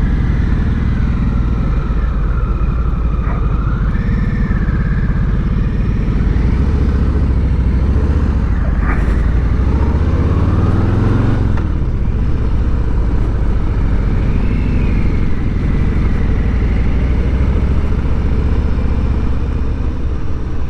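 Harley-Davidson Street Bob's Milwaukee-Eight 114 V-twin running under way as the bike gathers speed. About nine seconds in, the engine note rises for a couple of seconds, then drops suddenly at an upshift.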